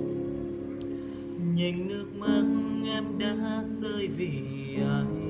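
Slow, sad ballad intro: plucked acoustic guitar under held notes, with a sliding wordless melody line entering about a second and a half in.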